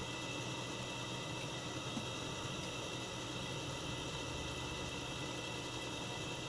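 Steady background hum and hiss with no distinct event.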